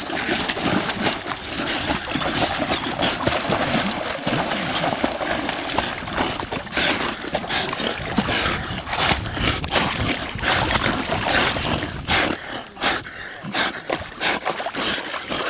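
Water splashing and churning as two dogs swim side by side, paddling hard while both grip one long stick in their jaws.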